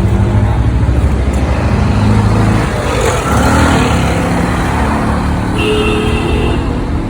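Street traffic with vehicle engines running, an engine hum strongest in the first couple of seconds, and a short high-pitched tone about five and a half seconds in.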